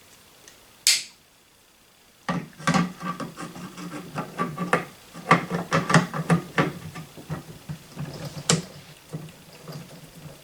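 Metal parts of a Barrett Model 95 .50 BMG rifle clicking and scraping as the loose bolt carrier is worked back into the receiver's grooves. One sharp click comes about a second in, then a run of quick clicks and knocks from about two seconds on.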